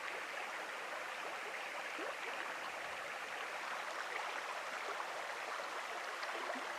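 Small mountain stream running over rocks: a steady rush of water.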